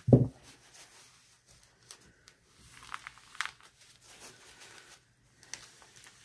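Paper towel rustling and crinkling, with a couple of sharp crackles about three seconds in, as it is handled and wiped along the edge of a paper-lined soap mould. A brief low thump comes at the very start.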